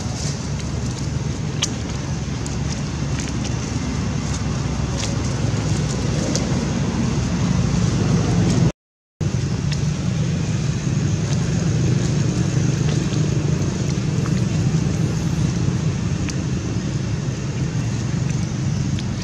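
Steady low outdoor rumble with a few faint clicks in the first few seconds; the sound cuts out completely for about half a second a little before the middle.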